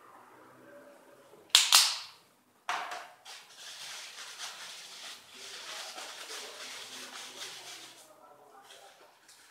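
Paper tissue being handled: a loud, sharp crackle about a second and a half in and another just after, then several seconds of steady crinkling that fades near the end.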